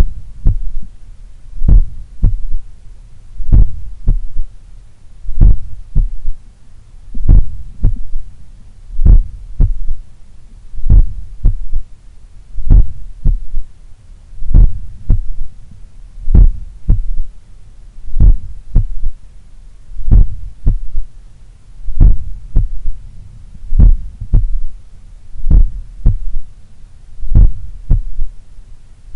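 Human heartbeat heard through a stethoscope at the apex of the heart: slow, strong beats about one every second and three-quarters. Each beat is a lub-dub followed by a fainter third heart sound (S3), which the recordist puts down to blood recoil or a slightly larger, supple left ventricle.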